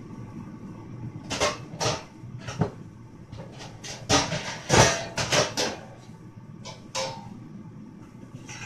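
Kitchen cupboard doors and pans being knocked about while someone hunts for a cookie sheet: a string of sharp knocks and clattering clanks, thickest and loudest a little past halfway, over a low steady background noise.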